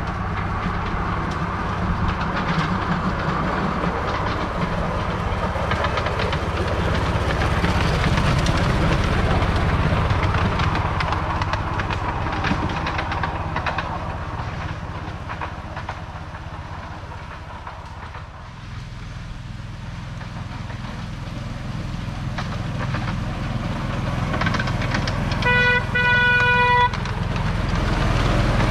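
Miniature railway trains running on narrow-gauge track, wheels clattering on the rails. The clatter fades about two-thirds of the way in, then builds again as a red-and-yellow diesel-outline locomotive approaches and gives a short horn toot near the end.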